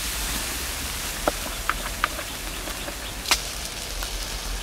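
Marinated pork strips sizzling on a wire grill over a wood fire: a steady hiss with a few sharp crackles and pops, the loudest near the end.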